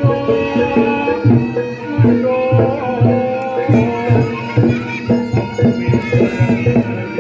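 Javanese gamelan accompaniment for a Barongan dance: kendang hand drums beating a fast, uneven rhythm over the ringing tuned notes of bronze gongs and metallophones.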